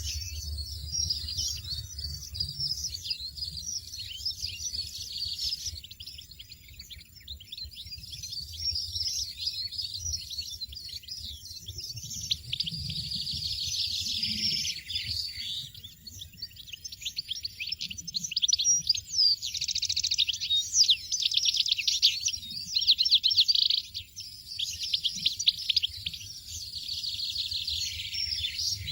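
European goldfinches twittering: dense runs of rapid, high chirps and trills that grow louder a little past the middle, over a faint low rumble.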